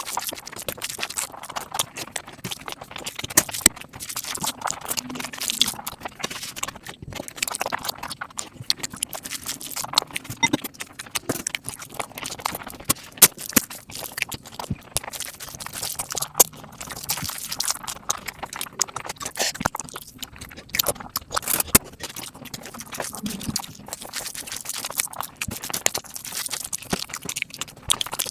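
Close-miked eating sounds of mutton fat curry, played back sped up: a dense, rapid run of wet chewing and mouth clicks.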